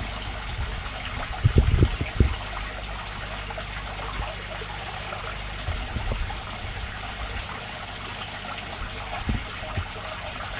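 Aquarium filter water trickling steadily, with a few low bumps about one and a half to two seconds in.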